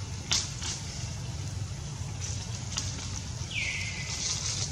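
Outdoor ambience: a steady low rumble, a few sharp clicks, and one short high call about three and a half seconds in that sweeps down and then holds.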